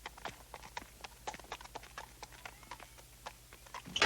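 A horse's hooves clip-clopping at a slow walk, as a cartoon sound effect: sharp, fairly faint clicks, about three or four a second.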